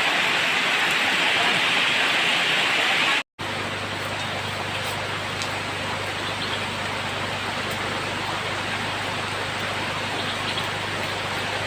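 Steady rushing water noise. It breaks off for an instant about three seconds in, then carries on a little quieter with a low hum under it.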